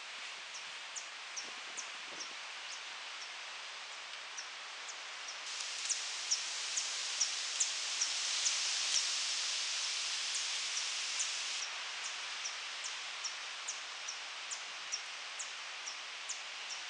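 A hummingbird giving a long run of short, high, repeated chirps, about two to three a second, over a steady rush of wind in the trees. Both are louder for several seconds in the middle.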